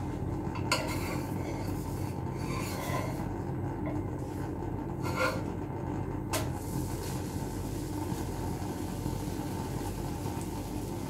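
A metal spatula scrapes under a wheat pancake on a nonstick tawa and flips it, making a few light clicks and scrapes, the sharpest about six seconds in. Under it runs a steady low rumbling hiss.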